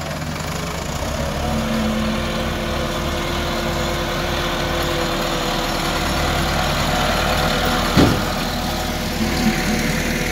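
Massey Ferguson 385 tractor's diesel engine running steadily, with a sharp knock about eight seconds in and a smaller one shortly after.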